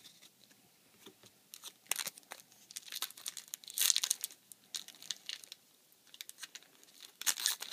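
Foil booster-pack wrapper of Yu-Gi-Oh cards being crinkled and torn open, in irregular crackling bursts, the loudest about four seconds in.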